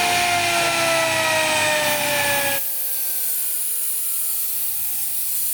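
CNC router spindle whining with several tones steadily falling in pitch as it spins down after cutting MDF; a loud rushing noise beneath it stops abruptly about two and a half seconds in.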